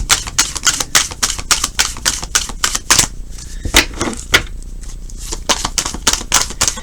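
A deck of tarot cards being shuffled by hand: a quick run of crisp card clicks and snaps that thins briefly in the middle.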